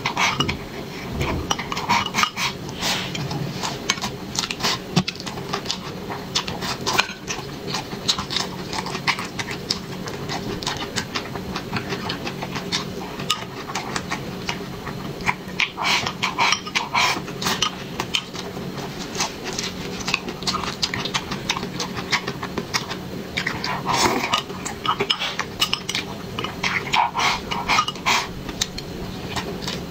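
Close-miked eating sounds: chewing and smacking mouthfuls of rice, with chopsticks clicking and scraping against a glass bowl in repeated clusters.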